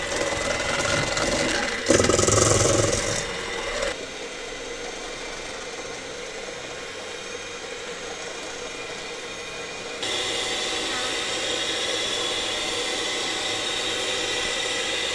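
Electric hand mixer running at speed, its twin beaters whirring through egg yolks and sugar in a stainless steel bowl. It is louder and rattlier about two seconds in, and the pitch and level shift abruptly about four and ten seconds in.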